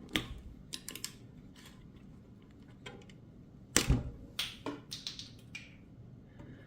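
Scattered sharp clicks and knocks of a hand tool prying at a stuck piece of broken plastic protector during e-bike assembly, with the loudest knock about four seconds in.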